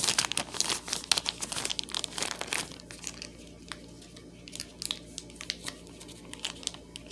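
Thin plastic packaging bag crinkling as it is handled, while someone tries to get a small tool out of it. The crackling is dense for about the first three seconds, then sparser and quieter.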